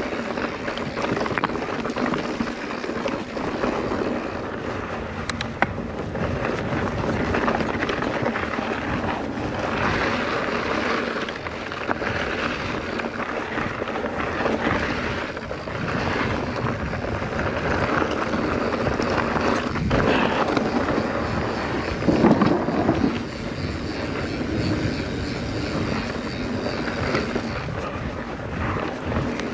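Wind rushing over the microphone and mountain-bike tyres rolling over a dirt trail, with a few sharp knocks and a louder surge about three-quarters of the way through.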